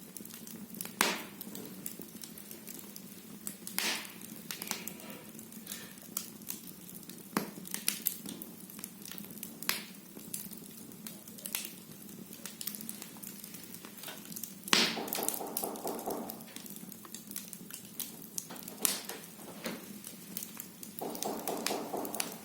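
Firewood burning in a fireplace, crackling with irregular sharp pops and snaps over a low steady hum. Twice a brief buzzing tone comes in, for about a second and a half near the middle and again near the end.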